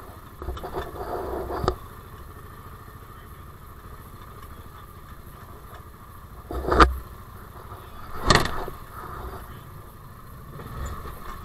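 Side-by-side UTV engine running low as the machine crawls over rocks, with a brief rise in engine noise about a second in. Two loud knocks about seven and eight seconds in, the machine bumping against rock.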